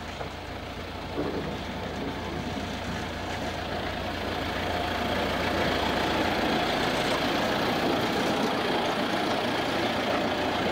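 Small narrow-gauge diesel field-railway locomotive running as it approaches and passes close by; the engine grows louder over the first few seconds, then runs steadily.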